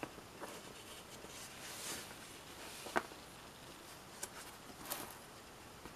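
Pages of an old paper instruction booklet being handled and turned by hand: soft paper rustling, with one sharp tap about three seconds in and a couple of lighter ticks after it.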